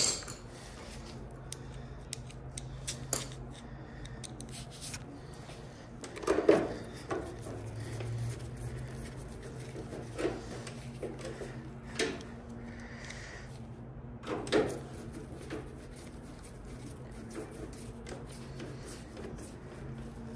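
Screws being taken out of a Kenmore Elite dryer's panel: irregular small clicks, knocks and scrapes of the screwdriver, screws and sheet-metal parts, a few seconds apart, over a low steady hum.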